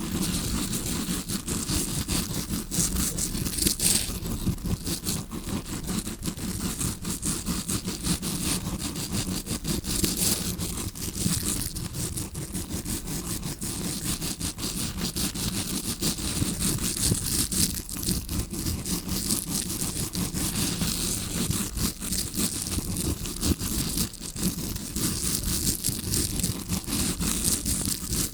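A tawashi scrubbing brush scratching and brushing close against the microphone, imitating ear cleaning heard from the eardrum side. It makes a continuous, dense, crackly scraping with no pauses.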